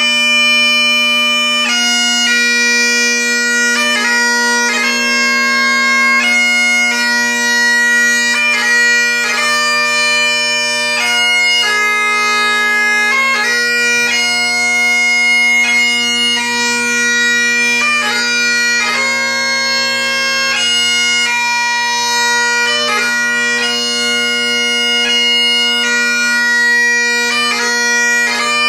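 Solo Great Highland bagpipe playing a slow tune. The chanter melody moves in long held notes of a second or two, broken by quick grace notes, over the steady drones.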